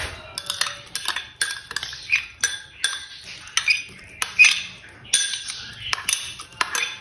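Spoon clinking and scraping against a bowl and a glass blender jar as soaked rice is spooned into the jar: a quick, irregular run of light clinks, about two or three a second.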